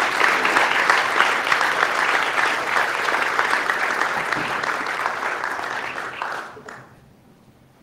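Audience applause: many people clapping at once in a steady patter that slowly weakens and dies away about six and a half seconds in.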